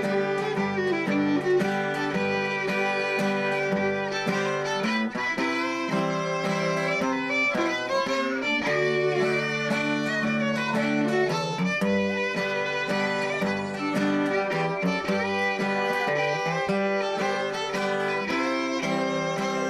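Cajun fiddle playing a waltz melody with steady acoustic guitar accompaniment.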